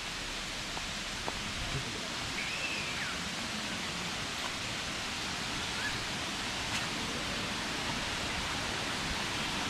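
Steady rushing of a waterfall, an even hiss of falling water, with a couple of faint high chirps about two and a half and six seconds in.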